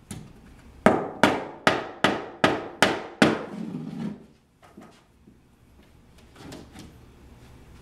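Hammer striking a sheet of OSB board: seven quick, evenly spaced blows, about two and a half a second, each ringing briefly. A few softer knocks follow later on.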